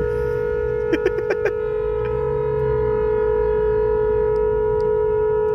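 A car horn held down in stalled traffic: one long, steady honk at a single unchanging pitch.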